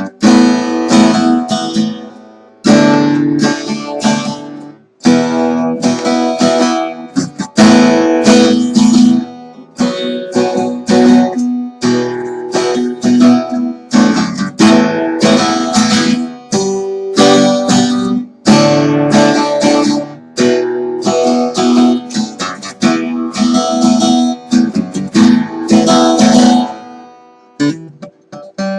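Rebuilt MFG 41 acoustic guitar being strummed, chord after chord, with short breaks between phrases and a fade to quiet near the end.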